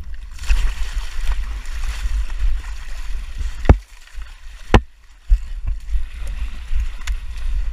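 Two shots from an HK G3 7.62×51mm battle rifle about a second apart, the first the loudest. Before them, splashing and scraping as the shooter moves through a muddy, water-filled trench, with a steady low rumble of wind on the microphone.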